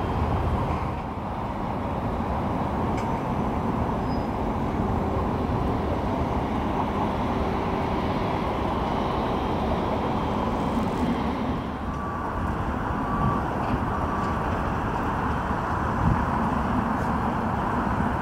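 Boeing 777F freighter taxiing, its two GE90 turbofan engines at low taxi power: a steady rumbling rush with a faint whine over it.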